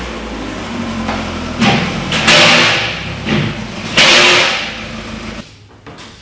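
Ford Mondeo Mk5's 2.0 diesel engine running on a road test, with two loud rushing surges of road and wind noise, the first about one and a half seconds in and the second about four seconds in. The sound cuts off suddenly about a second before the end.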